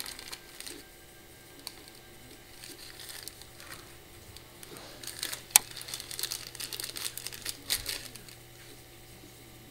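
Clear plastic wrapping around a wax melt tart crinkling and rustling as it is handled, with scattered small clicks and one sharp click about five and a half seconds in.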